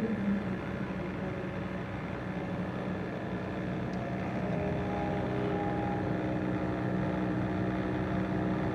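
A steady low droning hum with several held higher tones above it; a few of the higher tones come and go from about five seconds in.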